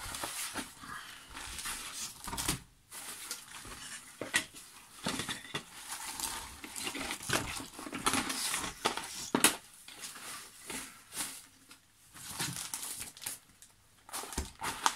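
Cardboard box and its packaging rustling and scraping as the overfull box is pressed shut, with a couple of sharp knocks, around 4 s in and again about 9.5 s in.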